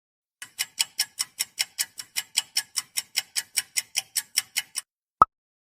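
Quiz countdown timer sound effect: fast, even clock-like ticking, about five ticks a second for roughly four seconds, then a single short beep marking that time is up.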